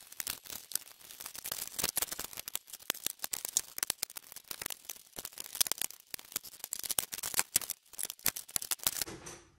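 A fast, irregular run of clicks, taps and clatters from hand tools and metal parts being worked on a Polaris RZR RS1 side-by-side during its teardown. The clicking stops shortly before the end.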